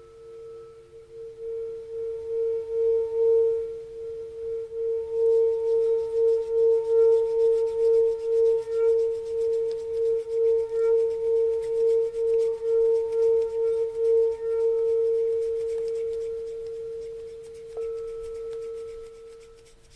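Singing bowl ringing with one steady, strong tone, its loudness swelling and pulsing in a wobble as a mallet is run around the rim. Near the end the bowl is struck again and rings on.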